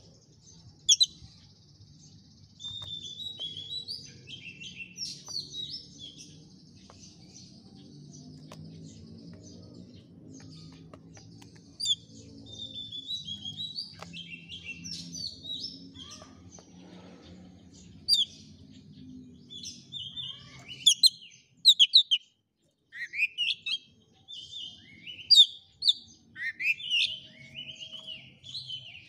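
Oriental magpie-robin (kacer) singing a long, varied song of quick chirps, whistles and trills, with several sharp loud notes. A faint low hum runs beneath it until about two-thirds of the way through.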